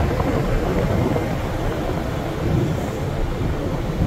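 Wind buffeting the microphone on a ferry's open deck at sea, a steady, uneven low rumble.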